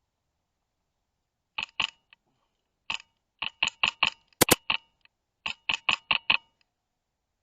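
Wolverine MTW HPA airsoft rifle firing semi-auto shots: about fourteen sharp clicks in quick strings of two to five, the loudest a close pair near the middle.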